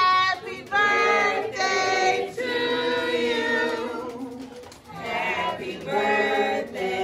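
Several voices singing together, a melody of short notes and one long held note about two seconds in.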